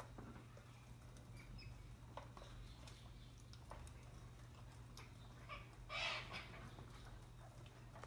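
Parrots at a feeding spot: faint scattered clicks and taps, with one short squawk about six seconds in.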